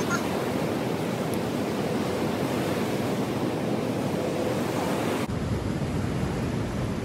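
Choppy river waves breaking and washing on a sandy shore, with wind. About five seconds in, a low wind rumble on the microphone sets in abruptly.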